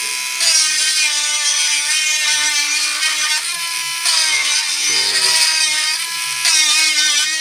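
Cordless electric engraving pen buzzing steadily as it engraves into wood, its buzz changing in tone a few times.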